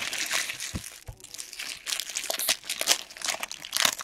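Foil trading-card pack wrappers being crumpled and torn open by hand, an irregular crinkling and crackling that comes in bursts. Two dull low bumps sound about a second in.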